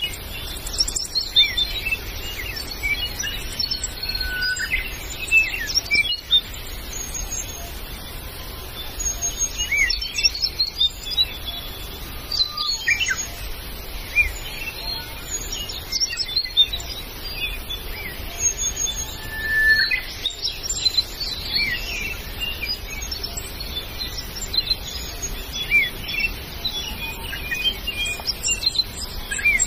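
Chorus of forest birds calling: many short chirps and quick rising and falling whistles overlap without pause, with brief high piping notes in between.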